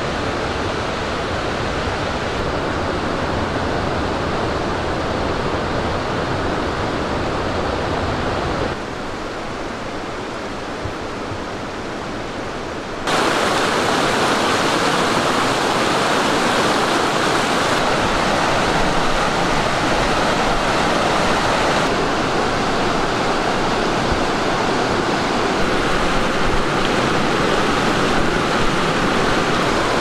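Steady rush of a mountain river flowing over rocks and small cascades. It changes abruptly twice: thinner and quieter about nine seconds in, then fuller and louder from about thirteen seconds on.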